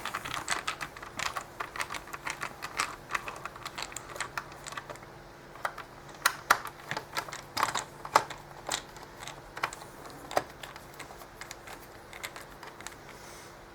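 Small plastic and circuit-board parts of a mini LED moving-head light being handled during disassembly: a quick run of light clicks and taps, then scattered louder clicks, over a faint steady hum.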